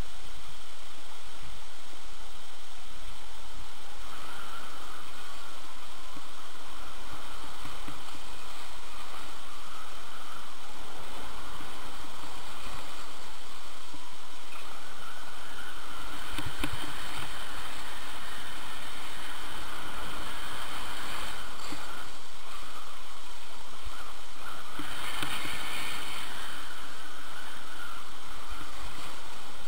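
Skis hissing and scraping over packed snow during a downhill run, with air rushing over the microphone, and a harsher scrape about 25 seconds in.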